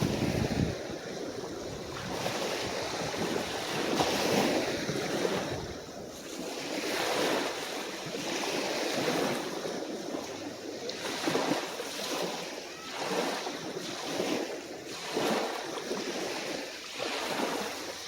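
Calm, small sea waves washing onto the beach, a new wash rising and falling every second or two.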